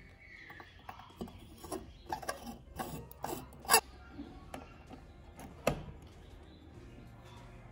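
Hands screwing a glass light bulb into a porcelain lamp socket, with light scraping and clicking, then a two-pin plug pushed into a power strip with a sharp click near the end, which switches the bulb on.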